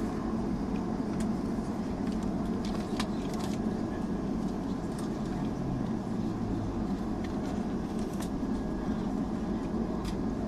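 Inside the cabin of a Boeing 757-200 taxiing: a steady low rumble from the twin jet engines at idle, with a few faint clicks.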